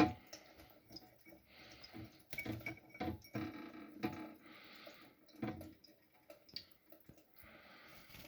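A small pet bathing under a running tap, splashing water in short spurts about half a second long, with light clicks and taps in between.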